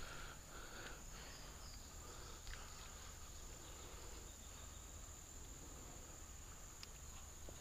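Faint outdoor ambience: a steady high-pitched insect chorus over a low background hiss.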